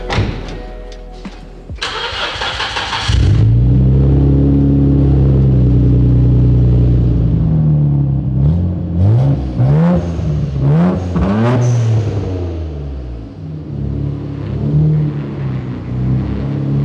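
Nissan R34 Skyline GT-R's twin-turbo straight-six cranked over and catching about three seconds in, then idling high. Between about nine and twelve seconds in it gets a few quick throttle blips before settling back to idle.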